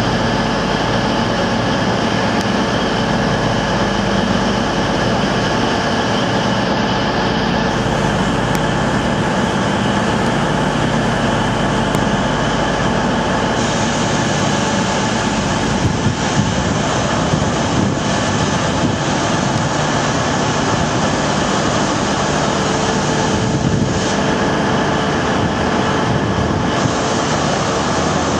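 Diesel engine of a Class 43 HST power car running steadily: a constant drone with several held tones.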